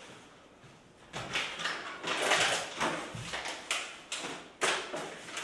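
A bag being handled and rummaged through on the floor: a run of rustling and scraping sounds starting about a second in, with several sharper scrapes near the end.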